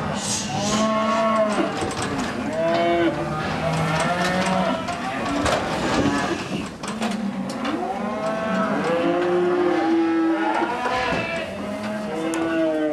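Many calves bawling, their calls overlapping almost without a break.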